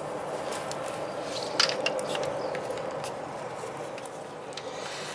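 A metal-framed solar panel handled and turned over by hand: a few light knocks and clicks from the frame over a steady background rush.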